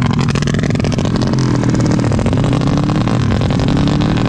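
Suzuki Satria FU drag-race motorcycle engine at full throttle, its pitch climbing as it accelerates down the strip.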